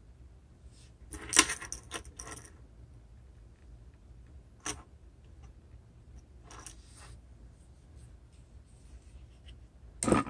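Small hard objects clicking and clattering: a cluster of rattles about a second in, a single click near the middle, and a sharp knock near the end.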